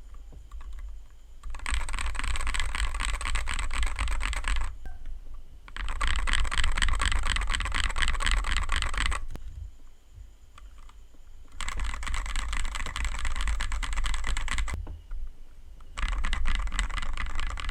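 Keys typed rapidly on a 60% mechanical keyboard with lubed Akko CS Matcha Green linear switches, in four bursts of clacking of about three seconds each, separated by short pauses.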